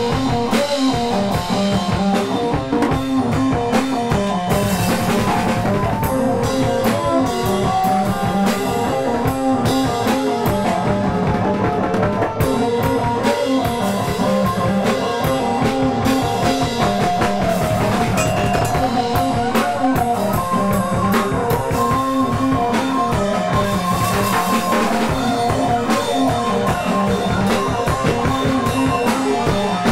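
Rock music with a drum kit keeping a steady beat under guitar and sustained melody lines, at an even loudness throughout.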